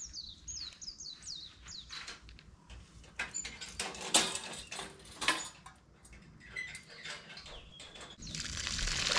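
A bird gives a quick run of falling chirps, then clicks and rustling as camping gear is handled on the ground, and a hissing rush lasting about a second near the end.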